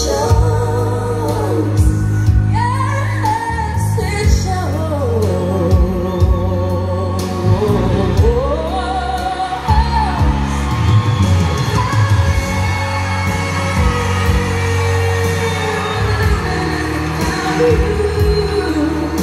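A song with a sung melody, the voice wavering with vibrato over a steady, strong bass line, played through JBL LX44 hi-fi loudspeakers driven by an Onkyo A-9310 amplifier.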